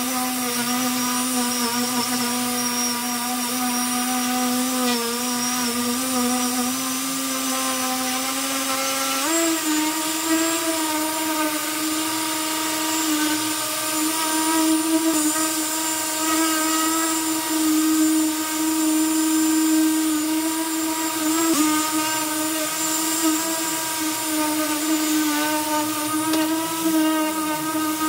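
Parkside PAEXS 20-Li A1 cordless random orbital sander running while sanding paint off a wooden board, a steady whine that steps up in pitch about nine seconds in and dips briefly a little past twenty seconds.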